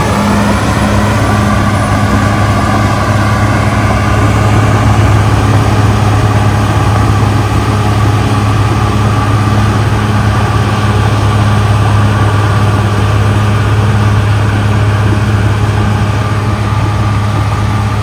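Caterpillar D6R XL bulldozer's diesel engine running with a steady low drone as the dozer works soil with its blade. A higher whine slides up and down in pitch during the first few seconds.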